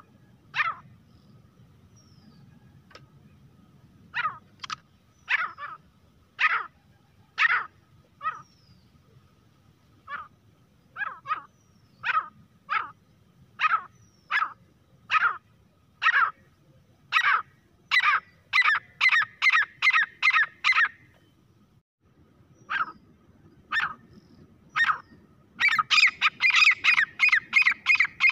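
Grey francolin calling. Short, sharp notes come about one a second at first, then quicken into rapid runs, and after a brief pause a dense, fast series of calls begins near the end.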